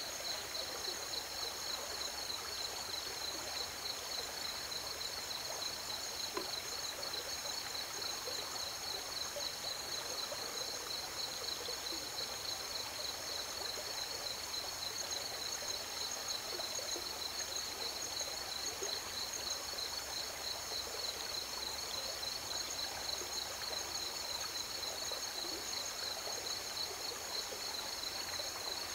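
River water flowing steadily, under a continuous high-pitched chorus of crickets trilling.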